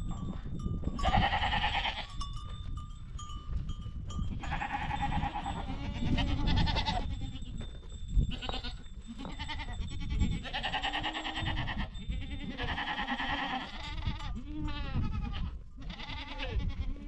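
A flock of goats bleating, many wavering calls following and overlapping one another, over a steady low rumble.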